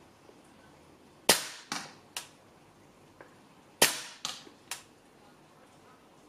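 Tokyo Marui MTR16 gas blowback airsoft rifle fired on semi-auto in two strings of three shots, each shot a sharp crack about half a second after the last. The first shot of each string is the loudest.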